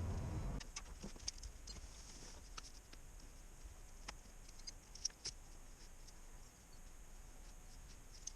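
Excavator diesel engine rumble that cuts off suddenly just over half a second in. It leaves faint scattered clicks and ticks over a steady high hiss.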